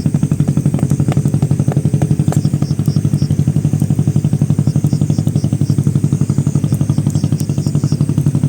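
A small engine running steadily at idle, with an even throb of about ten beats a second.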